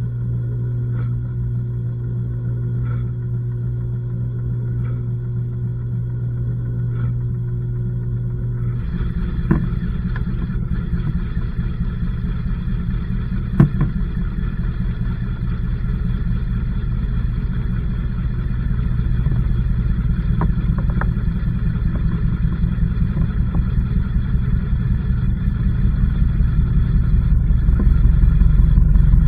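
LG washing machine running, heard from inside the drum: a steady hum with a faint tick about every two seconds, then about nine seconds in the sound turns louder and noisier, with a couple of sharp knocks, and builds steadily toward the end as the drum works harder.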